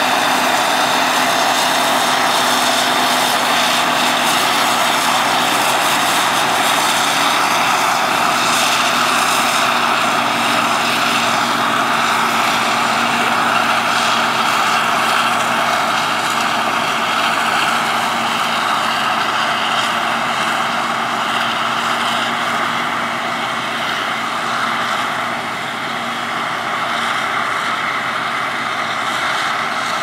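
CLAAS self-propelled forage harvester chopping maize under load, with its engine, cutter head and blower running as a loud, steady mechanical drone with a high whine. The chopped crop is blown out through the spout into a trailer.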